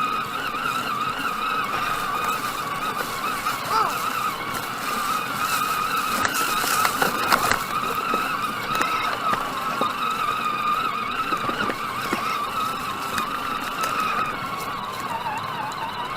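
Steady, high-pitched whine of small electric motors, wavering slightly in pitch, with a fainter higher overtone.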